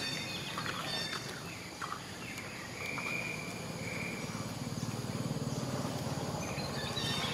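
Infant macaque crying: two high, thin squeals about three and four seconds in, over a low buzz in the background.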